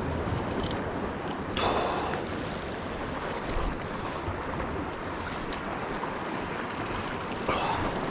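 Sea waves washing against the shore, with wind buffeting the microphone. Two louder surges of water come about a second and a half in and near the end.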